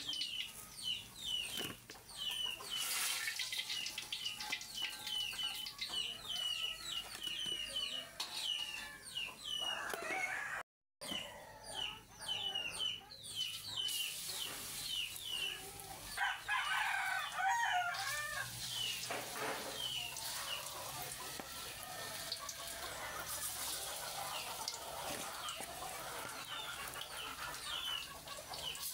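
Chickens: a steady run of short, high peeping calls, several a second, with a louder stretch of clucking and calling about halfway through.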